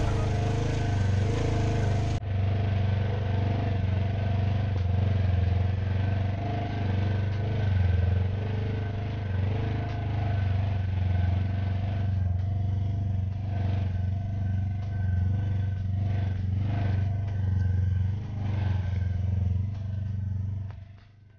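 Side-by-side UTV engine running at low, fairly steady revs while crawling over a rocky trail, with occasional knocks and rattles as the machine bumps over rocks.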